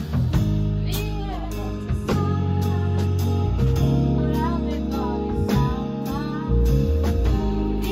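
A band playing a groove, with electric bass and keyboard holding low notes under a steady drum beat. A woman sings a wavering melodic line over it.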